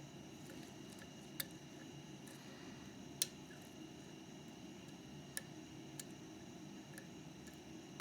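Faint metal clicks of a lock pick working the pins inside a Mauer MLS euro cylinder: five or so sharp ticks spread irregularly, the loudest about three seconds in, over a low steady hum.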